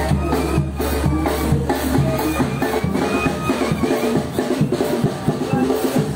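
Live band music with a deep tuba bass line and a bass drum and snare keeping a steady beat.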